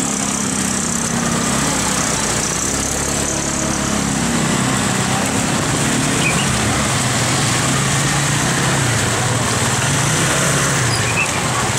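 Motor scooter engines running at idle close by, their pitch drifting a little, over a steady hiss of heavy rain.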